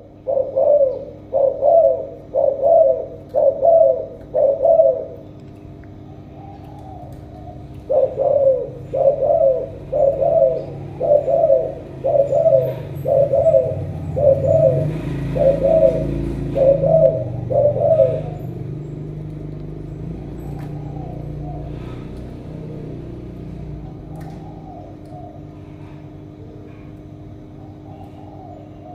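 Spotted dove cooing in rhythmic runs: about six coos, then after a short pause a longer run of about a dozen, followed by a few faint coos. A low rumble swells and fades through the middle of the second run.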